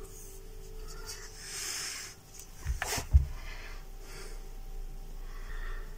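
Handling of a foaming glass jar of fermenting sugar wash: soft hissy sounds come and go, with two dull knocks about three seconds in.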